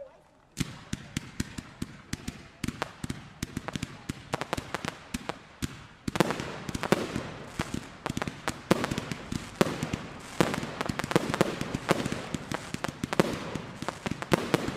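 Fireworks display: a dense, continuous barrage of sharp cracks and bangs that starts about half a second in and grows louder and thicker from about six seconds in.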